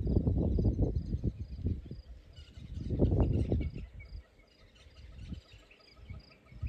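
Wind gusting over the microphone as a rumbling rush that comes and goes, loudest in the first two seconds and again around the middle. Under it, a faint high chirp repeats about twice a second.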